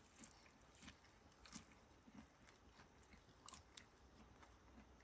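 Faint chewing of firm, crunchy bolete-mushroom tempura, a few soft clicks and crackles spread through it.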